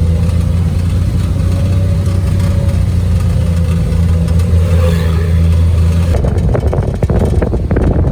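A motor vehicle's engine running steadily, a low even hum. About six seconds in, the sound changes abruptly to rougher, crackling rumbling noise.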